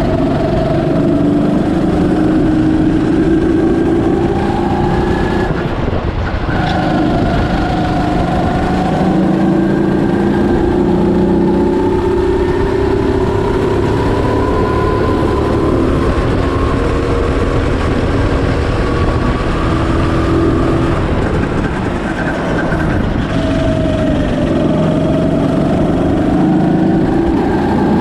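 Birel N35 rental go-kart's engine heard on board while driving, its pitch climbing steadily and then dropping back several times, under constant rumble and noise.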